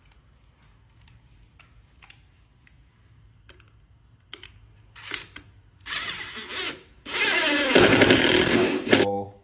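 Power drill run in short bursts, then a longer run of about two seconds near the end that winds down as it stops. Light clicks and taps of handling come before it.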